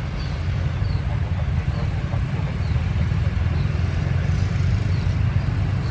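Steady low engine rumble from a twin-jet airliner on the runway and motorcycles passing on the road in front. Faint short high chirps repeat about once a second.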